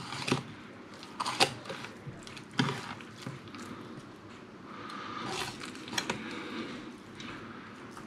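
Knife cutting a fillet from a sea bass along the backbone on a plastic chopping board: quiet scraping and slicing with a few sharp clicks as the blade meets bone or board.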